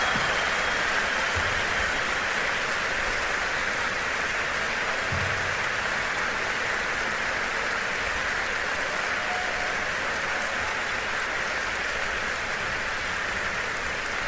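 16mm film projector running a hand-scratched, painted celluloid film, giving a steady, even hiss.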